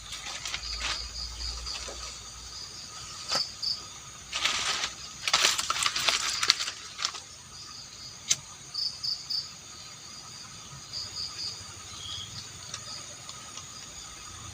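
Crickets and other insects chirping steadily, with short repeated chirps over a constant high drone. About four seconds in there are a few seconds of rustling and crackling, then one sharp click.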